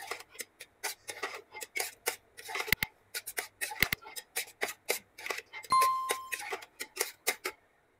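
A flat metal spatula scrapes and knocks against a large stainless-steel pot as boiled chana dal is stir-fried over high heat, in quick, irregular strokes. A short steady electronic tone sounds once, just before six seconds in.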